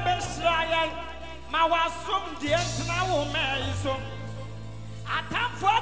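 Ghanaian gospel worship song performed live: a male lead singer with a wavering voice over a band with keyboard and steady bass notes that change every second or two.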